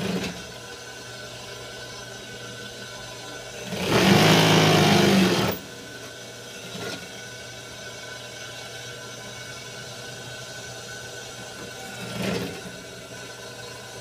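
Juki industrial sewing machine: its motor hums steadily while it stitches in one loud run of about a second and a half, about four seconds in, with short stitching bursts right at the start and again about 12 seconds in.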